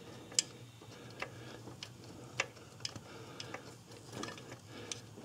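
Scattered light metallic clicks and ticks at irregular spacing from tools and hardware being handled while the timing belt tensioner bolt is fitted to the engine.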